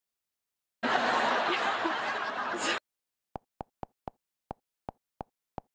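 A loud two-second snatch of noisy TV channel audio starts about a second in and cuts off abruptly. Then comes a run of short, identical interface clicks, about three a second, one for each step as the channel guide scrolls down.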